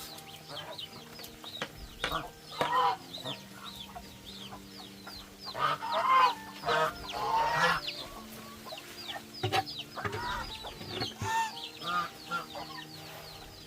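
Farmyard chickens clucking, with many short high cheeps throughout and a few louder calls about a third and halfway through.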